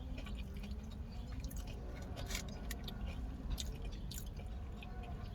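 Close-up chewing, with small wet mouth clicks and smacks scattered through, over a steady low rumble.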